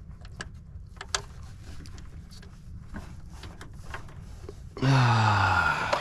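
Small scattered clicks and taps of hand tools working on the starter's fasteners, then near the end a man's loud groan, falling in pitch, lasting about a second.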